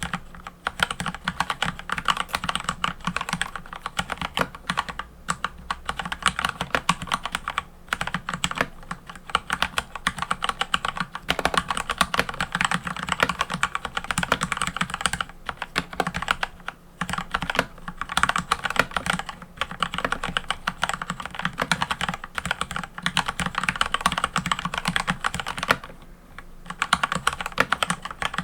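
Mechanical keyboard being typed on continuously, a fast, dense run of key clicks with a couple of brief pauses.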